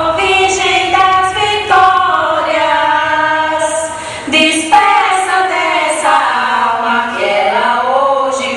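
A choir of women singing an incelência, the slow funeral lament of northeastern Brazil, in long held notes that slide from pitch to pitch.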